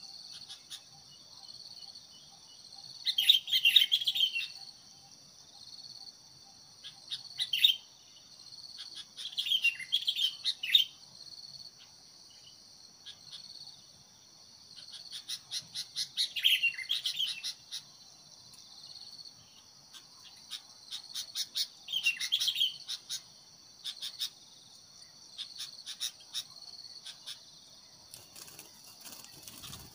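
Sooty-headed bulbuls calling in about six short bursts of chattering chirps, spaced a few seconds apart, over a steady high insect drone.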